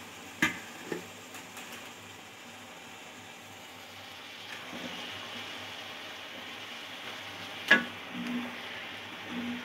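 Boiled rice being stirred into frying vegetables in a steel pot with a wooden spoon: a soft, steady sizzle and scraping, with a few knocks of the spoon against the pot, the loudest near the end.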